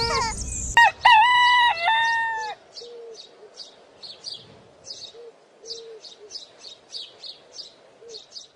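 A rooster crows once, a held call of about a second and a half, then small birds chirp in short high notes again and again.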